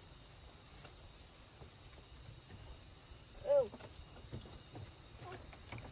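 Insects chirring, a steady high-pitched drone. About three and a half seconds in, a single short call rises and falls in pitch.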